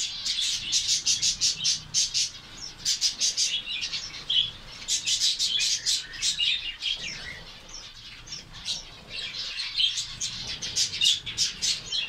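A flock of zebra finches calling: a dense, fast chatter of short, high calls that thins out for a few seconds past the middle and then picks up again.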